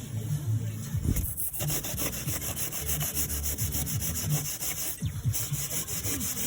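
Scraping and rubbing on brick as old mortar from a previous repair is cleaned off, a fast, even scratching that starts about a second and a half in, with a short break near 5 seconds.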